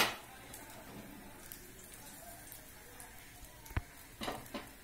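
Oil frying lightly in a frying pan, a faint crackle with a few pops near the end. A sharp knock at the start as the pan is handled.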